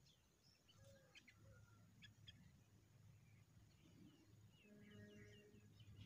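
Faint chirps from nestlings begging at the nest: a few scattered chirps, then a quick run of short falling chirps about four and a half seconds in while the adult bird feeds them, over a low steady hum.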